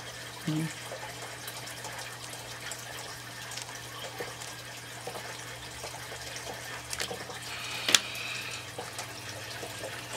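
Steady trickle of running water under a low electrical hum, with a few light clicks and taps of plastic parts and cables being handled on a table. There is a soft knock about half a second in and a sharper click about eight seconds in.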